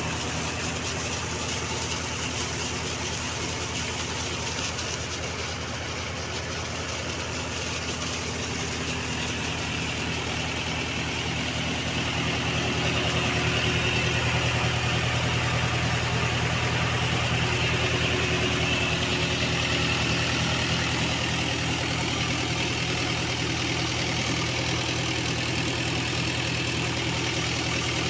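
Mahindra 415 DI XP Plus tractor's diesel engine idling steadily, a little louder for several seconds in the middle.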